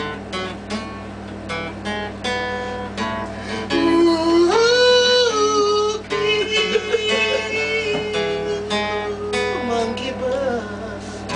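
Acoustic guitar being strummed in a steady rhythm. Through the middle, a voice holds long wordless notes over it, stepping between a few pitches before dropping away about ten seconds in.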